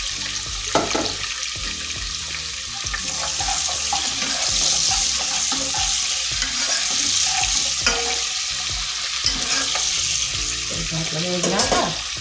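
Sliced onion and green chillies frying in hot oil in a pan, a steady sizzle that swells in the middle, with a spoon knocking and scraping against the pan a few times while stirring.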